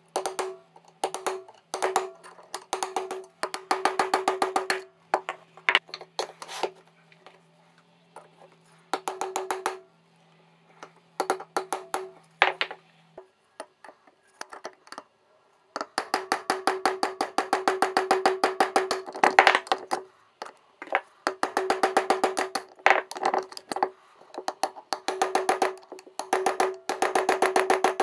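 A metal pick ticking rapidly over the gear teeth inside the cast-iron gear housing of a vintage enclosed two-speed breast drill, with a ringing metallic tone. It comes in runs of quick clicks, some brief and the longest lasting about four seconds.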